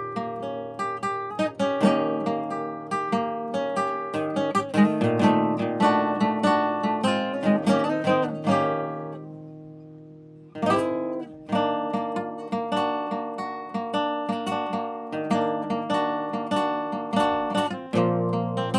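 Acoustic guitar playing a steady run of plucked notes. A little over halfway through, the last chord is left to ring out and fade for about two seconds, then the playing starts again.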